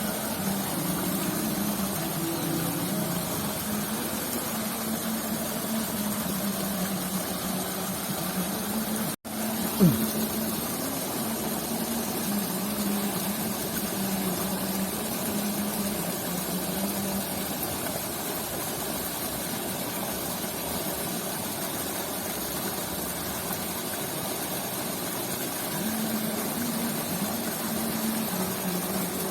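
A steady motor-like hum with a wavering low drone over constant hiss. About nine seconds in it cuts out for a moment, then there is one short loud sound.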